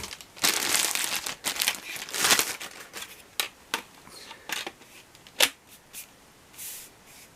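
Plastic packaging crinkling and rustling as vacuum cleaner parts are unwrapped, heaviest in the first couple of seconds, then a scattering of sharp clicks and short rustles.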